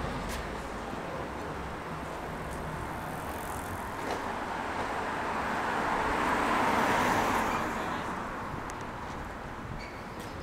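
Street traffic: a car drives past close by, its tyre and engine noise swelling to a peak about six to seven seconds in and then fading, over a steady hum of more distant traffic.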